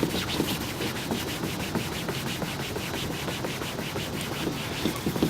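Buffing cloth rubbed rapidly back and forth over a textured plastic car bumper: a steady scratchy swishing, about five strokes a second, as freshly applied polish is buffed out.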